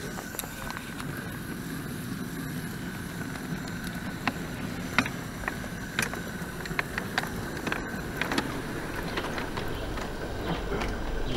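A 5-inch gauge miniature steam locomotive running along garden track: a steady hiss with many irregular sharp clicks and knocks.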